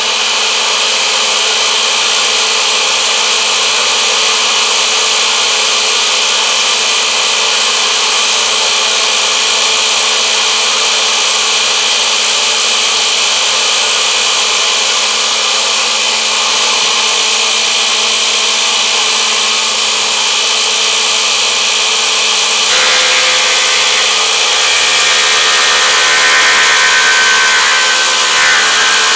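Vintage Sears Craftsman six-inch open-end wood planer, all cast iron and driven by a GE electric motor, switched on and running steadily with a loud whine. About 23 seconds in its tone changes and grows slightly louder.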